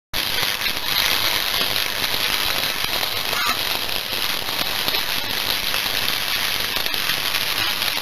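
Steady crackling, hissing noise with a few sharp cracks scattered through it: a title-intro sound effect to go with an animation of fiery sparks.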